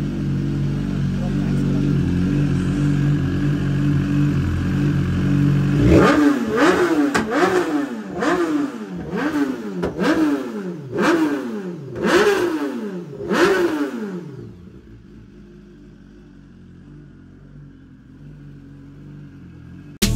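BMW S1000RR inline-four idling steadily, then revved in a quick series of sharp throttle blips, each rising and dropping back, for about eight seconds. After that the engine sound falls away to a much quieter background.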